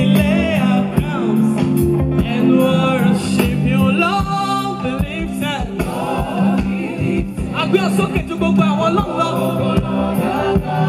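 Live gospel music amplified through a PA: a lead vocalist singing with backing voices over a band with a steady drum beat.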